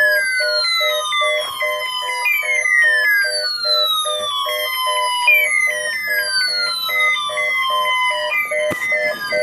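Electronic siren-like alarm: a tone that falls in pitch, starting again about every three seconds, layered over a fast pulsing beep of about three per second and steady high beeps. A couple of brief knocks come near the end.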